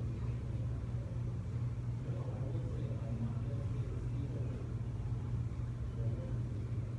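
Steady low hum of room background noise with nothing else standing out above it.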